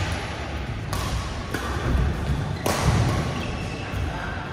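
Badminton rally: sharp cracks of rackets striking the shuttlecock, one about a second in and another nearly two seconds later, over players' footfalls thudding on the court.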